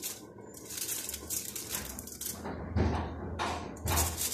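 Kitchen knife sawing through a crustless sandwich and scraping on the aluminium foil beneath, a steady rasping; then, in the second half, louder foil crinkles and a few dull knocks as the cut halves are handled on the foil-lined tray.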